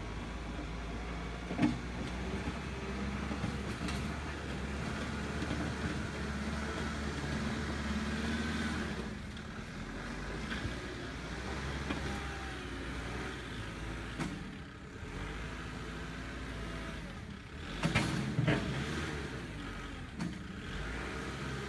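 Kubota diesel engine running steadily off camera. A sharp knock comes about a second and a half in, and a couple of clanks near the end.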